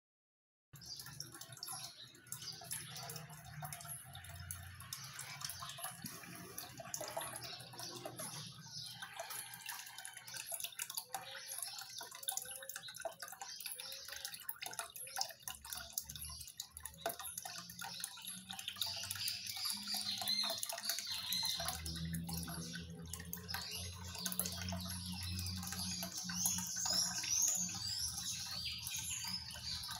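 Small homemade tiered fountain running: thin streams of water falling from the upper tray into the basin, splashing and trickling steadily like a small waterfall. A low steady hum sits underneath and grows stronger in the last third.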